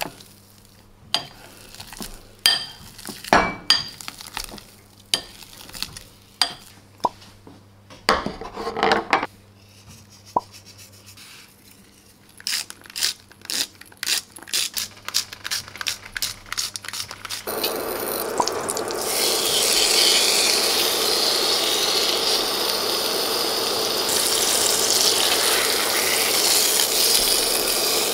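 Sharp clicks and knocks of kitchen utensils on crockery, with a metal potato masher working in a bowl, then a steak sizzling in hot oil in a frying pan, starting about two-thirds of the way through and running steadily on.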